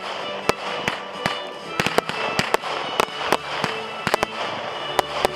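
Fireworks display going off overhead: a rapid, irregular series of sharp bangs and crackles, over music with held notes.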